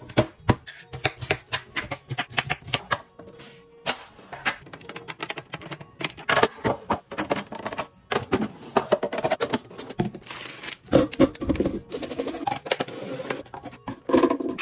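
Quick, irregular clicks and knocks of hard objects being handled and set down, over background music.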